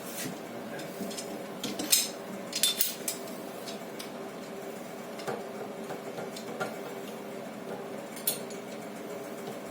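Small metal fittings clinking and clicking against each other a few times, loudest about two and three seconds in, as a threaded brass adapter is handled and screwed onto a pipe fitting, over a steady low hum.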